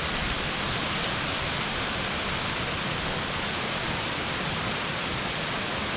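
Steady rushing of a waterfall, an even, unbroken roar of falling water.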